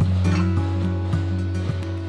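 Background music: a held low bass note with shorter pitched notes moving above it.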